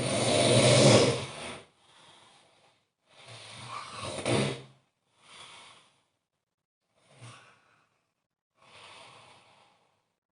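A person snoring heavily: two loud, low snores about three seconds apart, each followed by a softer breath, then a couple of fainter breaths.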